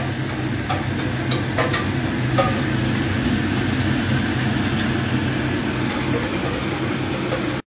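Mixed vegetables and prawns sizzling in a stainless steel wok over the steady hum of a kitchen extractor fan, with scattered crackles and ticks.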